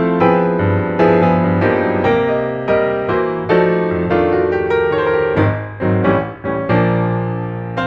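Background piano music: a melody of struck notes over sustained chords, at a steady, unhurried pace.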